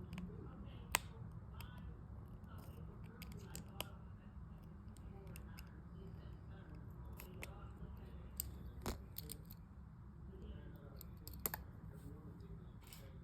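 Small hand tools clicking and ticking against an iPhone's parts while it is being opened up, in irregular sharp clicks, over a steady low hum.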